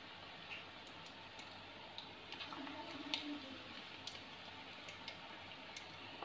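Gram-flour-battered stuffed eggs deep-frying in hot oil in an aluminium kadai: a faint steady sizzle with scattered crackles and pops.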